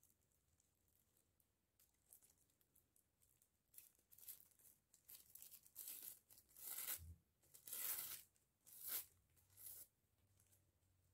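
A strip of plastic shopping bag crinkling and rustling as it is handled, pulled tight and knotted, in a string of short bursts starting about four seconds in.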